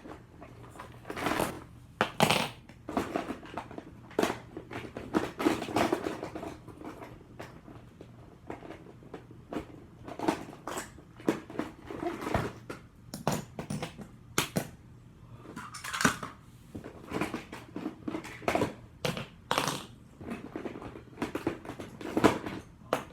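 Small plastic fidget toys being handled and clattering together: irregular clicks, knocks and rattles.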